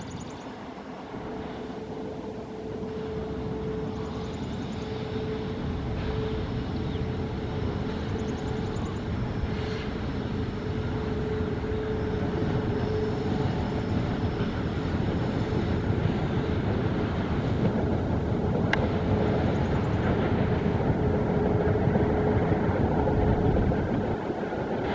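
Heavy freight train approaching, its rumble growing steadily louder, with a steady drone over it.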